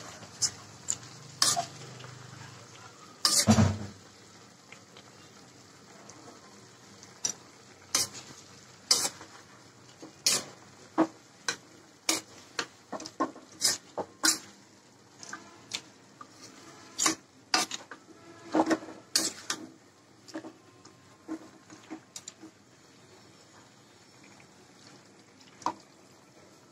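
Spatula stirring and scraping moong dal and fish pieces in a metal wok, with irregular sharp knocks against the pan, the loudest about three and a half seconds in. Under it is a faint sizzle as the mixture fries in oil and spices.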